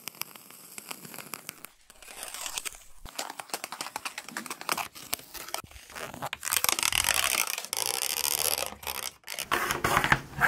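A pencil point scratching and scraping as it is drawn across hard surfaces, heard close up. The sound breaks off abruptly a few times.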